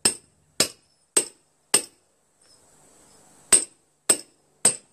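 Hammer striking metal tools wedged between a lawn tractor tire and its 6-inch rim, with sharp ringing metal-on-metal blows about two a second: four, a pause, then three more. The blows are driving the tools in to break the bead of an old dry-rotted tire off the rim.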